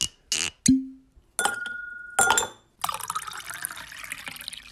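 A short run of sharp clicks and a dull knock, then two bright glass clinks about three-quarters of a second apart, the first ringing on in a clear tone. Then liquid is poured into a glass with a dense crackle.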